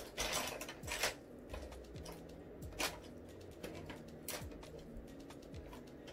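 A blush palette being handled: a few scattered light clicks and taps, the loudest about a second in.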